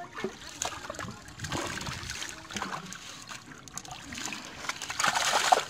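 Water trickling and splashing as a mesh fishing net is lifted and worked through by hand in shallow water, with a louder splash near the end.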